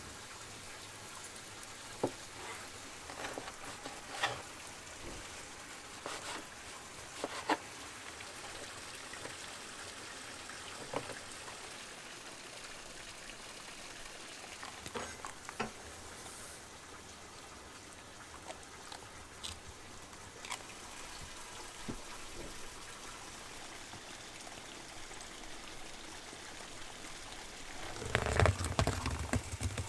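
Knife tapping and scraping on a wooden cutting board while raw beef is sliced into steaks, a scattered click now and then, over a steady soft outdoor hiss. Near the end comes the loudest sound: the string stitching of a paper sack ripped out and the stiff paper rustling as the sack is pulled open.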